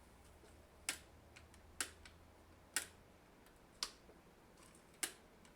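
Five sharp clicks, about one a second, as drill press parts are tried against each other during assembly.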